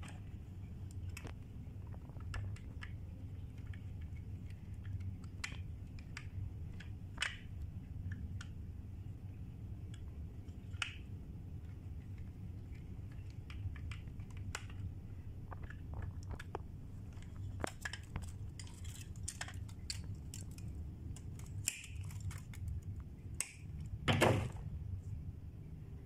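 Scattered small clicks and taps of hand-wiring a red plastic fire alarm break-glass call point: a screwdriver working its wire terminals and the wires and housing being handled, over a steady low hum. The taps come thicker toward the end, and one louder clatter comes near the end.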